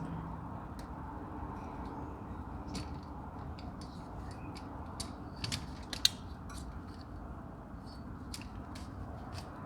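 Scattered light clicks and clinks of hand tools and metal parts being handled, with a sharper click about six seconds in.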